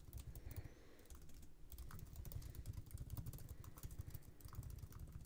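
Computer keyboard being typed on, a steady run of faint key clicks as a line of text is entered.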